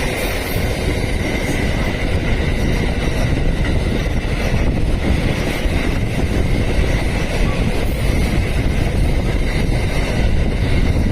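Electric passenger train running through the station, with a steady rumble of wheels on rail and a faint high whine over it.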